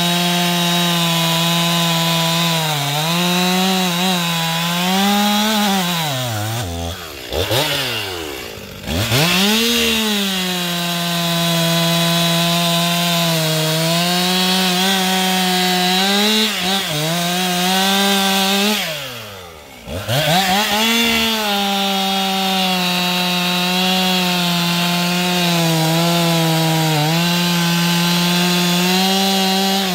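Stihl MS 261 two-stroke chainsaw cutting through logs at high revs, its pitch sagging a little and recovering under load. Twice, about seven and nineteen seconds in, the engine drops toward idle and then revs back up into the next cut.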